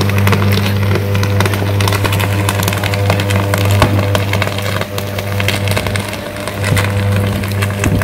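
Electrical arcing on a wet power pole in heavy rain: a loud, steady mains buzz with rapid crackling and snapping over it, the sign of a fault burning on the pole.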